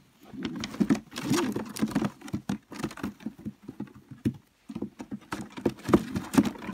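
Pigeons shuffling and scrabbling inside a wooden-slatted transport basket while the basket's slat lid is lifted and handled, giving a dense run of clicks, knocks and rattles of wood, with a short lull about two-thirds of the way through.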